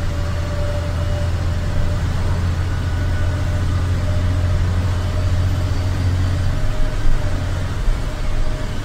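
Ashok Leyland sleeper coach's diesel engine running as a steady low drone, heard from the front of the bus while it drives on a wet road. The drone drops away about two-thirds of the way through, with a few bumps after.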